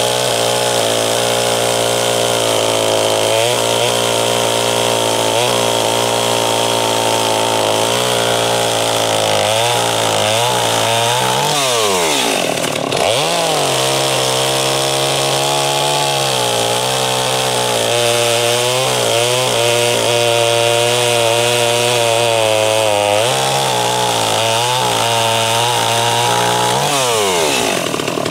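Holzfforma G255 45cc two-stroke chainsaw, a Stihl MS250 clone, at full throttle cutting through a log. Its engine pitch sags over and over under load, dives deeply about twelve seconds in before picking back up, and falls away near the end. The saw is running sluggish.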